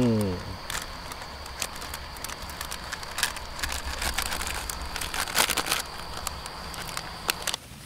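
Scattered light clicks and plastic crinkling from handling a self-heating instant noodle bowl, its lid and plastic wrapping, over a steady high tone that cuts off near the end.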